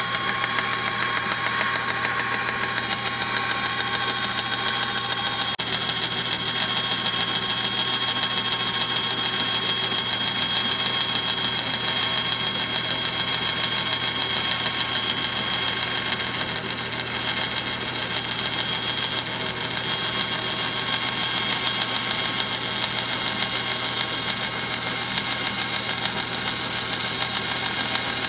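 Bench bandsaw running steadily while cutting a pine board, its motor hum and high blade tone unbroken; the tone shifts slightly about six seconds in.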